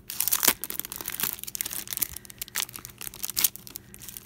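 Plastic packaging of a clear stamp set crinkling and crackling as it is handled and turned over in the hands, in a run of irregular crackles.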